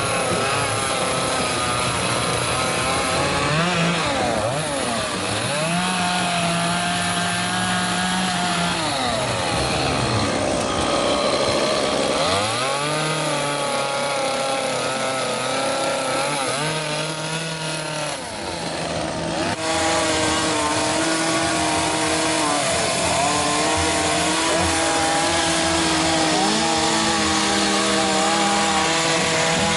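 Chainsaws carving wood, more than one running at once, their engines revving up and easing off again and again.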